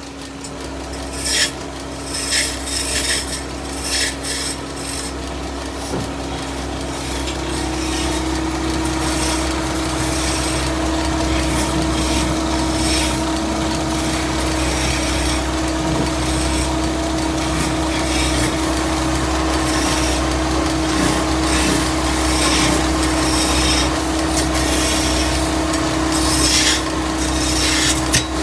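Motor-driven wood lathe running with a steady hum while a hand-held chisel cuts into a spinning wooden cot leg, giving uneven scraping as shavings come off. The scraping is heaviest in the first few seconds and again near the end.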